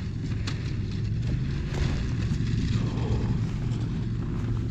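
Snowmobile engine running at a steady speed while riding over the ice, an even drone with no change in pitch.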